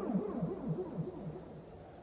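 Electronic police siren in a fast yelp, each wail dropping sharply in pitch about three times a second, fading away and dying out about one and a half seconds in, leaving a faint low rumble.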